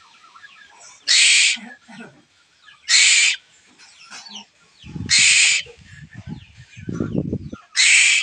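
Asian koel chick giving harsh, noisy begging calls for food, four calls of about half a second each, roughly every two seconds. Low rumbling noise comes twice in the second half.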